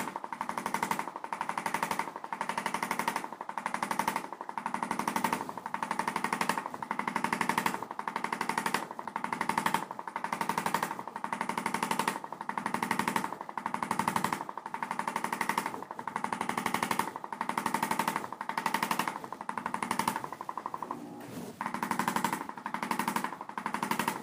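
Handheld electric percussion massager hammering rapidly on the upper trapezius muscle, with a knot in it, pressed in steady strokes about once a second.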